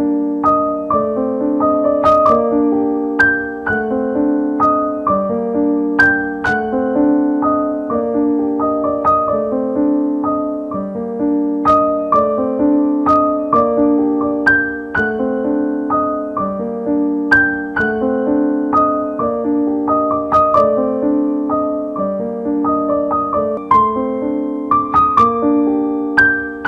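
Background piano music: a light melody of separate notes over a repeating pattern with a steady rhythm.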